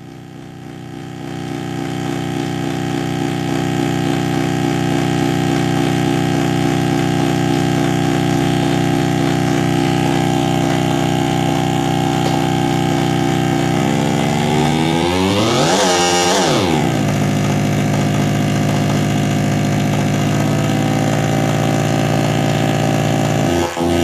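Circuit-bent Furby run through a voice-changer circuit, giving a steady electronic drone rich in overtones that fades in over the first few seconds. About two-thirds of the way through, its pitch sweeps sharply up and back down; it then settles back into the drone and turns choppy right at the end.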